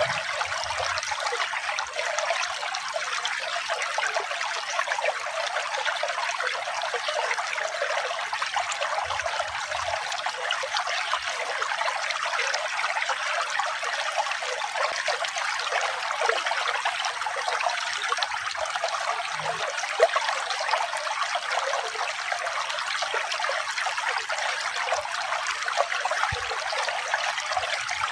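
Running water trickling and splashing steadily, light and bright with no low rumble.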